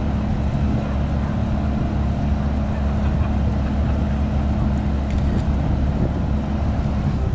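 Tugboat engine running steadily while moving the barge, a loud low drone with a constant hum.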